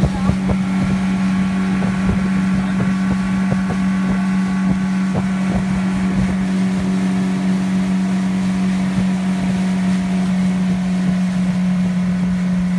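Pontoon boat motor running steadily under way, a constant unchanging drone, with wind buffeting the microphone.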